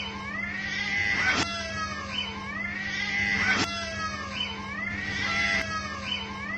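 Street cats caterwauling in a territorial standoff: long, drawn-out yowls that rise and fall in pitch, one after another about every two seconds, the threat calls of cats squaring up to fight.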